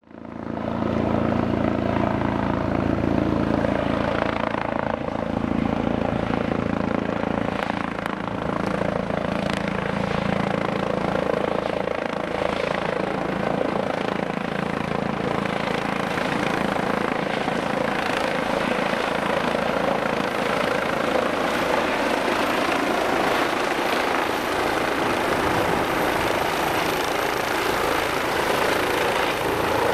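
Eurocopter EC135 twin-turbine helicopter flying low overhead as it approaches to land: continuous rotor and turbine engine noise, steady throughout after fading in at the start.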